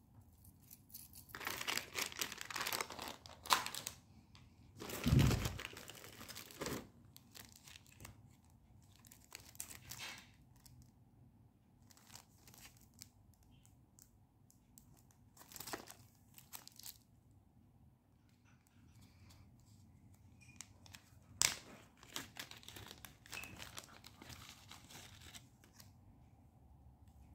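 Packaging being torn open and crinkled by hand, in irregular bursts of rustling. The loudest burst comes about five seconds in, and there is a sharp click a little past the middle.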